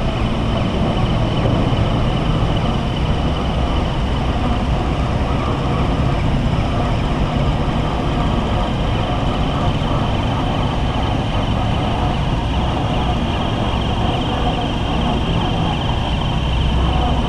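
A large rubber-tyred gantry crane lifting a ship, its machinery running with a steady low rumble and a thin, steady high whine over it.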